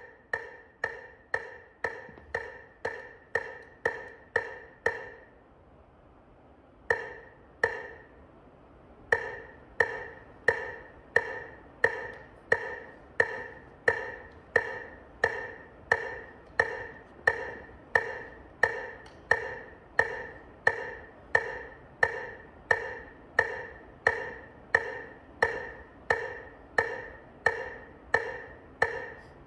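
Metronome clicking a steady beat of about two clicks a second, with a woodblock-like tone. The clicking stops for a couple of seconds about five seconds in, two single clicks follow, and then the steady beat resumes.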